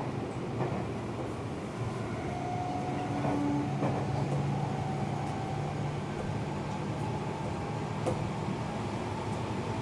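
Running sound inside a Seibu 6000 series train's motor car: steady wheel and rail noise, with a humming motor tone that comes in about two seconds in and fades near the end. There are a few sharp clicks over the wheels.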